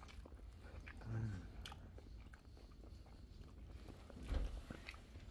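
Faint biting and chewing of food with small wet mouth clicks, a short hum about a second in, and a low thump a little after four seconds.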